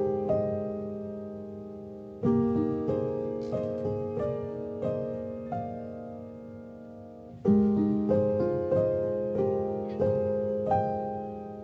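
Background piano music: a slow, gentle melody of single notes and chords that each ring and die away, with a new phrase starting about two seconds in and another past seven seconds.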